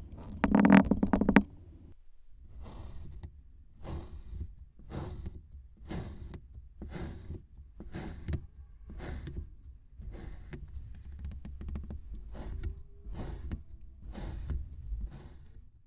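Glitter slime being kneaded and pressed by hand: sticky squelches, clicks and pops repeating about twice a second. About half a second in there is a louder, buzzing squelch lasting about a second, the sound of air forced out of the slime.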